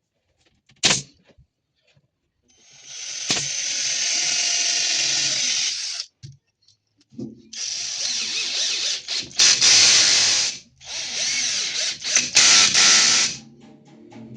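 Power drill running on wood in bursts: one steady run of a few seconds, then a longer run with brief stops, as in drilling holes or driving screws. A sharp click comes about a second in.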